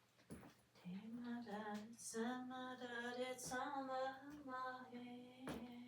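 A person singing a slow tune to themselves in long held notes with short breaks, without clear words. There is a light click near the start and another near the end.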